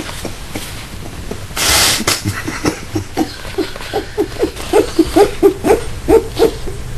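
A brief whoosh about a second and a half in, then a person's stifled laughter in short squeaky bursts, about three a second, growing louder.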